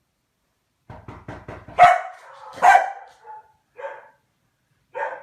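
A dog barking: a quick run of short sounds about a second in, then two loud barks and a few softer ones.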